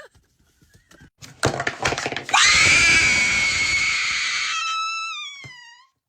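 A short burst of crackling, then a long high-pitched scream, held for about two seconds before it slides down in pitch and fades.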